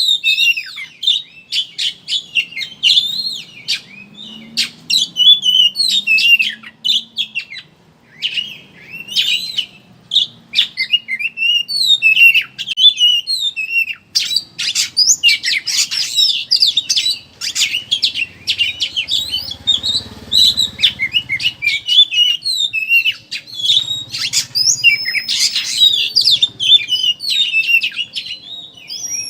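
Oriental magpie-robin (kacer) singing a fast, chattering twitter ('ngeriwik'): dense runs of high, quickly gliding notes in phrases broken by brief pauses.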